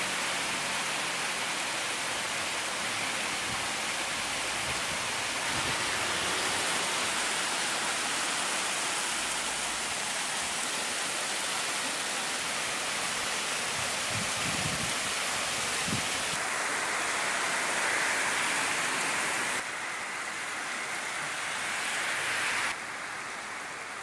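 Hail and heavy rain pelting an asphalt street: a dense, steady hiss of countless small impacts. The sound shifts abruptly in tone and level three times in the last third.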